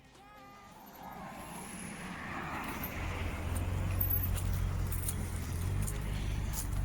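A car approaching, its engine growing steadily louder and settling into a steady low running note from about three seconds in.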